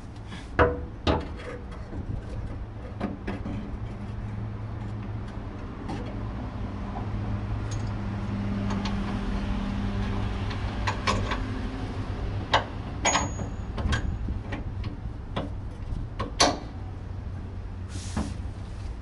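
Irregular sharp metal clinks and knocks of a wrench and bolt being worked at a pickup's panhard bar mount, the loudest near the start and late on, over a steady low background rumble.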